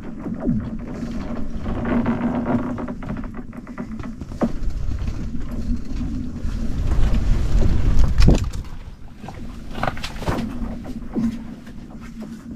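Frozen reservoir ice cracking: deep rumbling booms with several sharp cracks and pings, the loudest about eight seconds in, over a steady low hum.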